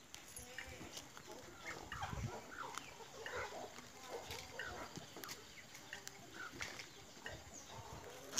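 Chickens clucking: many short calls scattered throughout, with a dull low thud about two seconds in.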